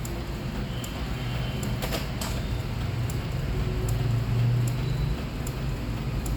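Epson L14150 A3 inkjet printer running a print job: a steady low mechanical whir of the print head carriage and paper feed, with light regular ticks and a brief cluster of clicks about two seconds in.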